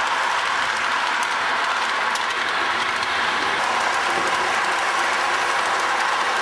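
Lionel O-gauge toy freight train running steadily on its plastic track: an even rushing noise of the motor and wheels, with faint ticks.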